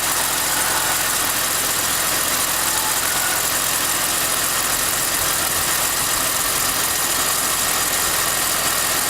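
BMW E46 engine idling steadily, with the whining, chirping noise that the owner is recording.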